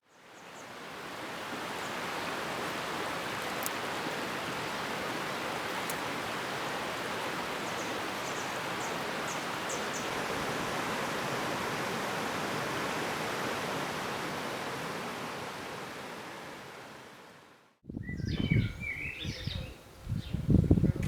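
Steady rush of flowing water from a stream, fading in and out, with a few faint bird chirps. Near the end it cuts to birds chirping over low gusts of wind on the microphone.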